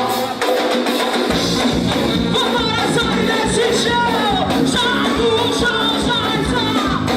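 Live band playing an upbeat song with a sung lead vocal; the bass and drums come in about a second in under the higher instruments.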